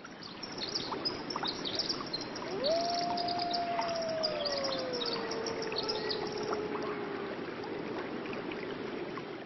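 Nature ambience: many small birds chirping over a steady rushing background. About two and a half seconds in, one long call rises quickly, then slowly falls away over about five seconds.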